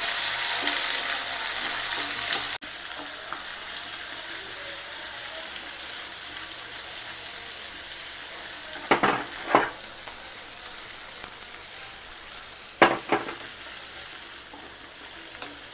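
Halved small shallots and green chillies sizzling in hot groundnut oil in an iron pan, just added and starting to sauté. The sizzle is loud at first and drops suddenly to a quieter hiss about two and a half seconds in, with a few short scrapes as a wooden spoon stirs them against the pan.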